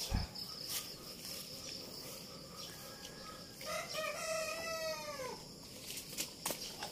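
A rooster crows once about halfway through, a single call of under two seconds that rises slightly and then drops away. A steady high insect trill runs underneath.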